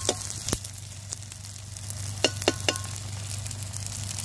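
Besan-coated roti frying in oil on a tawa: a steady sizzle, with a few sharp clicks, three of them in quick succession a little over two seconds in.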